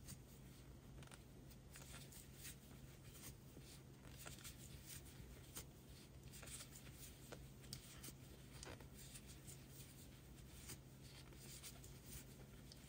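Faint, irregular scratchy rustles and light clicks of a crochet hook pulling bulky yarn through single crochet stitches, over a low steady hum.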